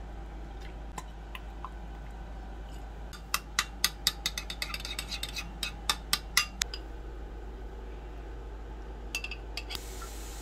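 A metal spoon clinking against a bowl as a thick sauce is stirred: a quick run of sharp clinks for about three seconds starting a few seconds in, then a few lighter taps near the end.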